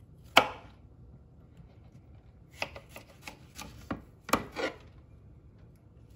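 Kitchen knife slicing through zucchini and knocking on the cutting board: one sharp knock about half a second in, then a quicker run of several cuts about two and a half to five seconds in.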